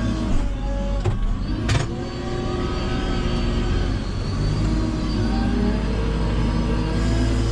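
A motor running steadily with a low hum, its pitch shifting up and down, and two sharp knocks a little over a second in.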